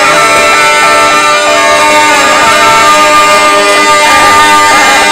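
Zampogna, the southern Italian bagpipe, playing a melody with its wooden chanters over steady drones, loud and continuous.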